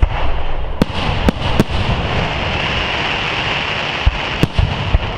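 Aerial firework shells bursting with sharp bangs: one right at the start, three more in the first two seconds, then a quick cluster of four about four to five seconds in. A steady noisy hiss fills the gaps between them.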